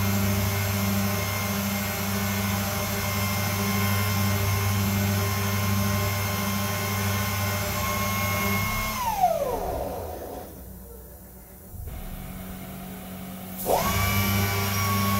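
High-speed deburring spindle of a robotic gear-deburring cell running with a steady whine while it works the edges of a helicopter bevel gear's teeth. About nine seconds in, it winds down with a falling whine. Near the end it spins back up with a sharply rising whine and settles at its running pitch.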